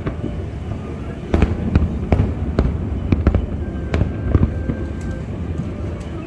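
Fireworks display: an irregular run of sharp bangs and pops from bursting aerial shells, over a continuous low rumble of distant explosions.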